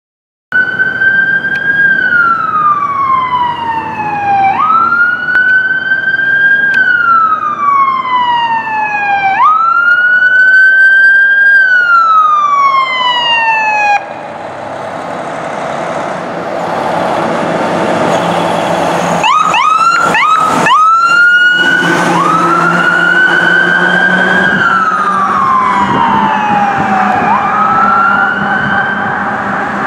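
Sirens of a responding fire engine and ambulance: a wail that rises quickly and falls slowly, repeating about every four to five seconds. After a sudden cut about halfway, road noise, then a few quick yelping sweeps before the wail returns over a steady engine rumble.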